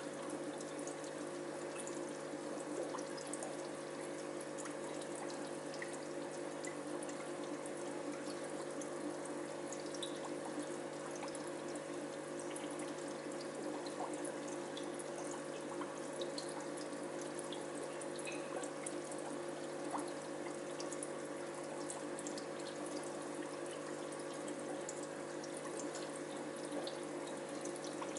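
Aquarium filter running: steady trickling and bubbling of water over a constant low hum from its pump, with scattered faint ticks.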